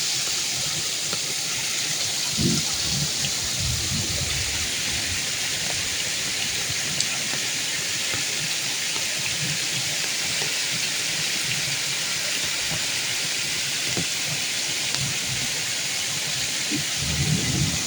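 Steady rain falling, an even hiss throughout, with a few brief low rumbles a few seconds in and again near the end.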